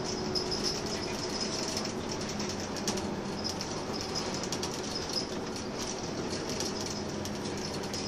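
Scania K230UB Omnilink bus under way, its rear-mounted nine-litre five-cylinder diesel running steadily, heard from inside the passenger saloon. Frequent light rattles and clicks from the bus's fittings and a steady high hiss run over the engine note.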